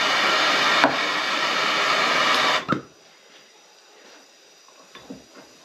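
Gas hand torch on a yellow Bernzomatic MAP-Pro cylinder burning with a steady hiss, shut off abruptly a little under three seconds in. A sharp click about a second in; faint handling sounds after the flame goes out.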